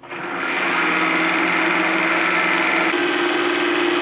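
Vertical knee mill's spindle motor starting and spinning up, then running steadily with a hum and a higher whine; the hum shifts slightly about three seconds in.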